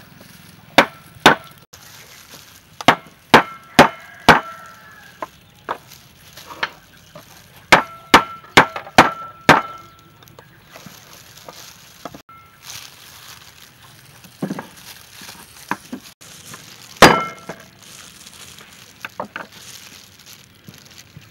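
A cleaver blade struck repeatedly into the tops of tin cans to cut them open: sharp metallic hits with a short ring, in two bursts of several strikes during the first ten seconds. A single heavy hit comes at about seventeen seconds, and a few lighter knife taps follow near the end.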